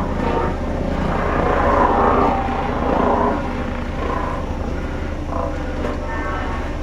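Diesel engine of a heavy construction machine running steadily, with a constant low drone and changing higher-pitched tones over it.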